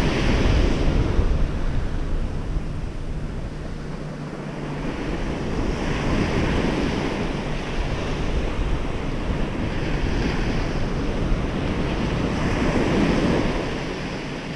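Ocean surf washing up a sandy beach, swelling and easing as waves break, with wind rumbling on the microphone.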